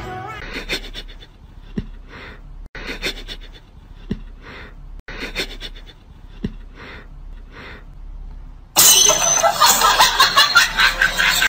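A cat sniffing at a socked foot in short breathy sniffs about once a second. Near the end a sudden, much louder, choppy burst of sound takes over.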